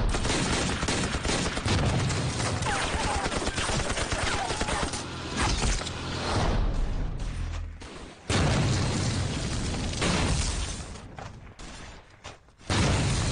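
Battle sound effects: a dense rattle of gunfire and explosions, dropping out briefly about eight seconds in and again near the end.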